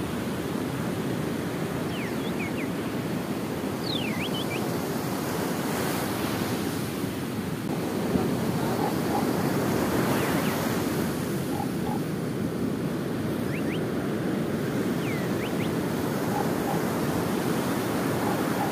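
Ocean surf breaking on the beach: a steady rush of waves that swells a little about halfway through.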